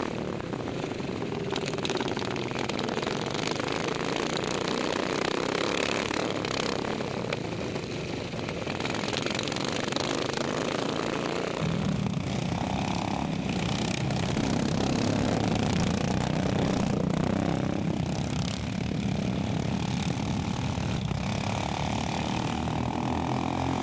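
Small petrol engines of racing lawn mowers running on a race circuit. They get louder about halfway through.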